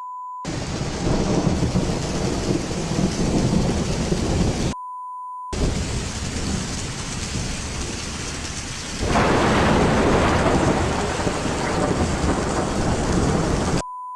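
Hail pelting a car in a storm: a dense, steady drumming of ice on the bodywork that grows louder and heavier about nine seconds in. A short steady beep tone sounds at the start, about five seconds in, and at the end.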